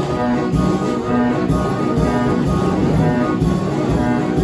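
Welte orchestrion playing a tune: its organ pipes sound held notes over a drumbeat.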